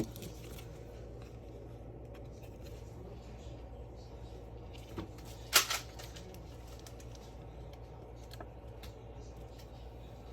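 Trading cards being handled: faint rustling and light ticks, with one short, louder swish about five and a half seconds in, over a steady low hum.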